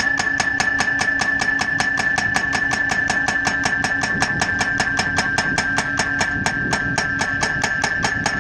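Hydraulic impact hammer of an Ingetrol Poledrill pile driver pounding a solar-panel mounting post, with rapid even blows about five a second over a steady high whine and hum from the machine.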